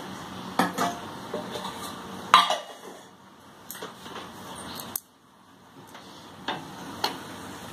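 Steel spatula clinking and scraping against a frying pan of dry-roasting cauliflower stems: a handful of sharp clinks, the loudest about two and a half seconds in, over a faint steady hiss.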